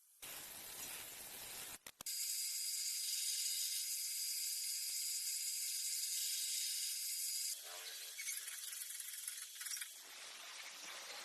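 Machine noise in several short segments with abrupt cuts: a steady high hiss with a thin whine through the middle, then different rougher machine sounds near the end.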